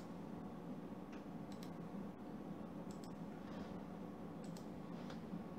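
Computer pointer-button clicks, several of them quick double-clicks, over a steady low hum.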